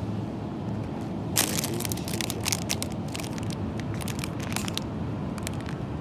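Crinkling and crackling of a plastic-wrapped bread package being handled, starting about a second and a half in and lasting a few seconds, over a steady low hum.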